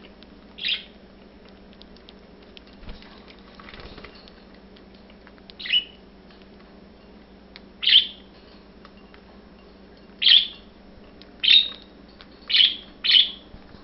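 Budgerigars giving short, single chirps, about seven of them, coming more often in the second half.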